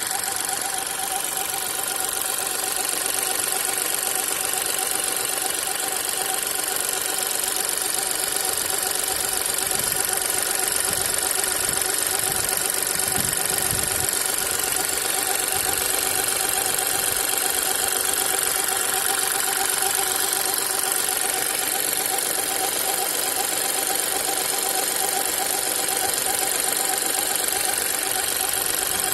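VW 1.0 TSI three-cylinder turbo petrol engine idling hot and steady, with a squeak in the background whose cause the owner does not know.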